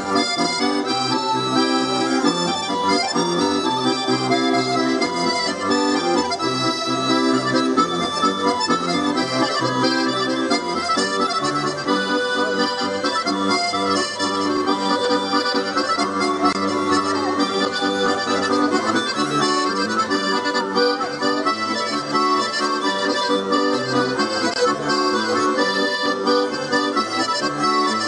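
Accordion playing a traditional dance tune through a speaker, with a steady rhythmic bass accompaniment.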